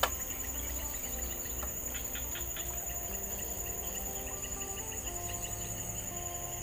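Crickets trilling in a steady, high-pitched shrill chorus, with a sharp click right at the start and a few short chirps in the middle.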